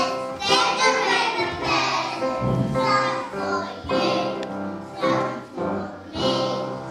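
A group of young children singing a song together, with a steady accompaniment holding notes under the voices.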